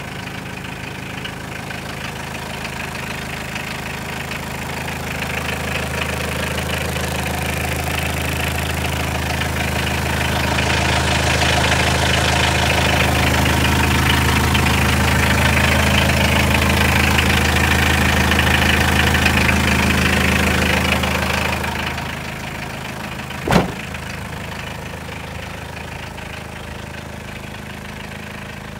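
Mitsubishi Canter truck's engine idling steadily, growing louder through the first part and dropping back a little over two-thirds of the way through. A single sharp knock comes soon after the drop.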